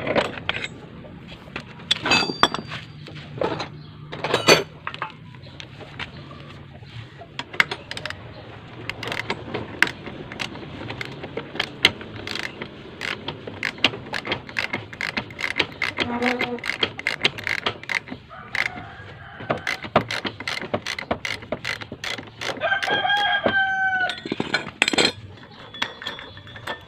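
Repeated metallic clicks and knocks of a socket wrench and loose metal parts as a scooter's CVT is taken apart by hand. A rooster crows near the end.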